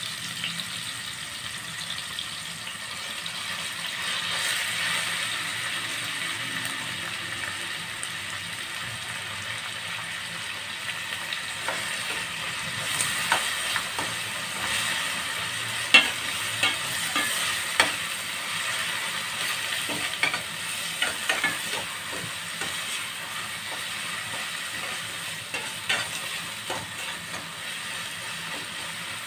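Stainless steel pan of tomatoes, onions, garlic and ginger frying in oil, a steady sizzle that swells a few seconds in as fresh alamang (tiny shrimp) is sautéed in. A metal spoon stirs the mix, clicking and scraping against the pan, with sharper clicks from about halfway on.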